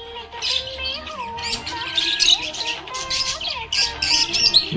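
Budgerigar chirping and chattering in quick, repeated bursts, over background music with a held, gliding melody.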